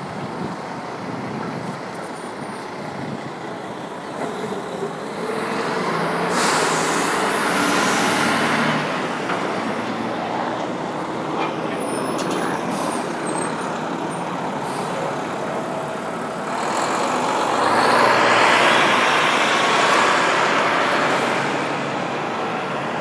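Road traffic passing close by: engine and tyre noise from passing vehicles, swelling about five seconds in and again more loudly near the end, as a large truck pulling a trailer rolls past.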